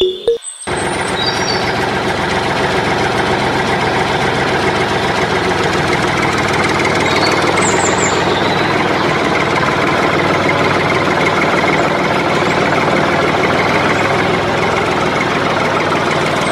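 Tractor diesel engine running steadily at idle, starting about half a second in.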